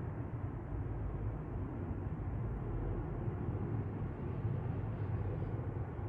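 Airbus A321 twin-jet airliner flying overhead: steady, low-pitched jet engine noise with no distinct tones.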